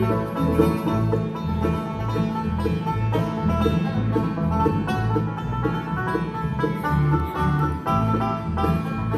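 Bluegrass band playing an instrumental break with banjo, fiddle, mandolin, acoustic guitar and upright bass, the banjo out front. The upright bass keeps a steady pulse of about two notes a second.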